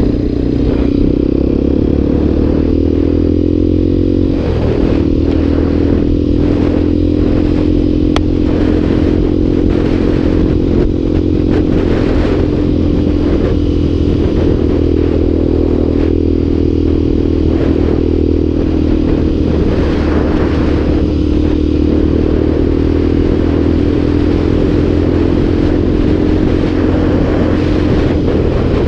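Motorcycle engine running while riding. Its note rises over the first four seconds, drops sharply at a gear change about four and a half seconds in, then holds steady at cruising speed over a low road rumble.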